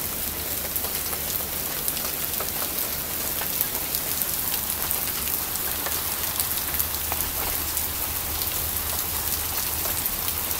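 Hail and rain falling steadily on the ground: a dense, even patter with many small sharp taps.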